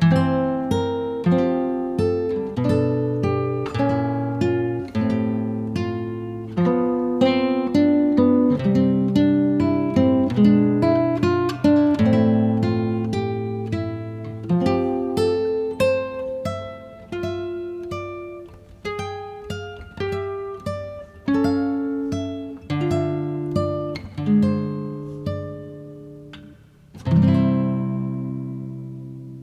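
Background music: acoustic guitar playing plucked and strummed notes, ending on a chord that rings out and fades near the end.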